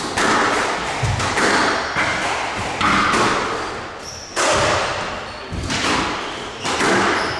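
Squash rally: the ball being struck by rackets and smacking into the court walls, sharp hits about once a second, each echoing in the hall.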